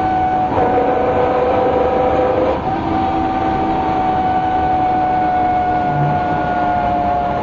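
MCW Metrobus with its Gardner diesel engine running under way, the rear axle differential giving a prominent whine over a low engine rumble. A second, lower whine joins about half a second in and drops out about two and a half seconds in, and the main whine eases slightly lower toward the end.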